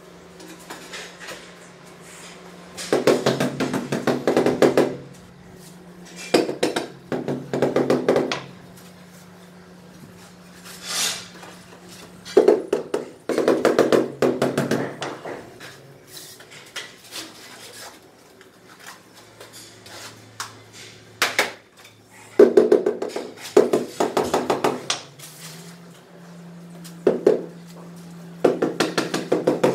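Rubber mallet tapping large ceramic floor tiles to bed them into the adhesive, in runs of quick blows one to two seconds long with pauses between.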